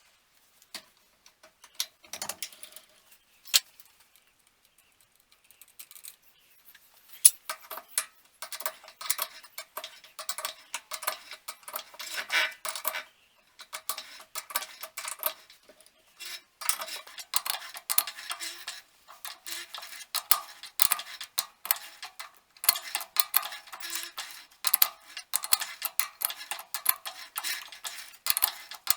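Hand-tapping an M10 x 1.5 thread into a lathe-held nut blank: the tap cuts in with rasping metallic scraping and clicking. It comes in spurts separated by short pauses, sparse at first and denser from about seven seconds in.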